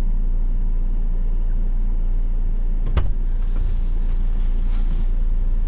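Car running, heard from inside the cabin as a steady low rumble, with one sharp knock about three seconds in.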